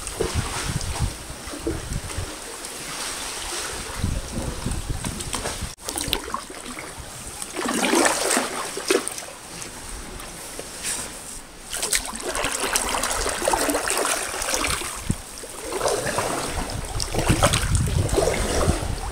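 Sea kayak paddle dipping and pulling through calm sea water, with irregular splashes and water dripping and trickling off the blades. A low rumble of wind on the microphone runs underneath.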